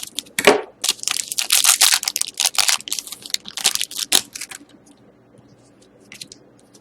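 Hockey card pack wrapper being torn open and crinkled, a dense run of crackling for about four and a half seconds. A few faint clicks follow as the cards are handled.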